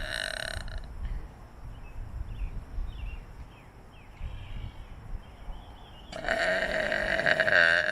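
Long, drawn-out burps: one trailing off about a second in, and another starting about six seconds in and running on, its pitch wavering towards the end.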